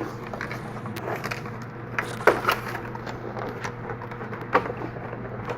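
Irregular clicks and knocks of a computer case and packaging being handled, a few louder knocks about two seconds in and again near the end, over a steady low hum.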